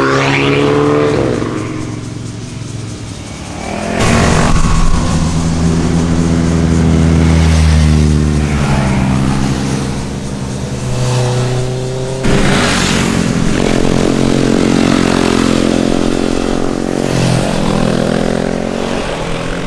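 Motorcycle engines passing one after another through a corner, each exhaust note rising as the rider accelerates and falling away as the bike goes by. The sound changes abruptly about four and twelve seconds in.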